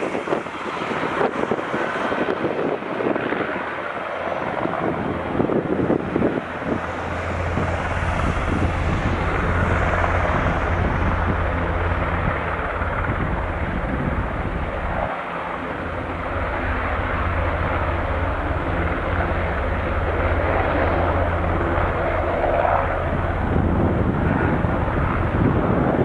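Eurocopter Écureuil light helicopter's turbine and rotor running as it hovers low and then climbs away. From about seven seconds in there is a strong, steady low drone, with a brief dip about halfway through.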